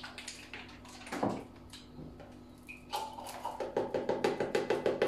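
Milk glugging in an even rhythm, about four to five glugs a second, as it pours out of a tipped carton into a cup, starting about three seconds in. A brief knock of kitchenware about a second in.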